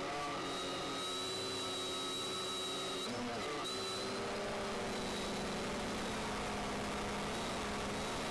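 Quadcopter drone's electric motors and propellers whining steadily in flight, the pitch shifting briefly at the start and again about three seconds in as the motors change speed.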